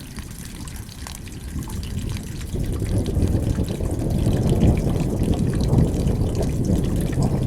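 Rain falling with scattered drop ticks, while a low rumble of thunder swells from about a third of the way in and stays loud.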